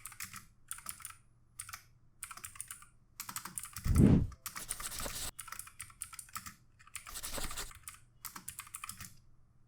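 Typing on a Drevo Calibur mechanical keyboard with clicky Outemu Blue switches, which are clones of Cherry MX Blue. The typing comes in quick runs of sharp clicks with short pauses between them, and there is one louder, deeper stroke about four seconds in.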